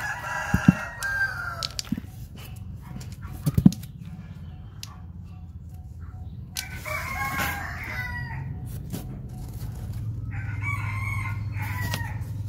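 Rooster crowing three times, each call lasting about one and a half to two seconds, with two sharp knocks about half a second and three and a half seconds in.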